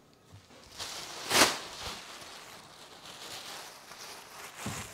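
Plastic trash bag rustling as it is shaken open and spread into a trash can, with one loud swish a little over a second in.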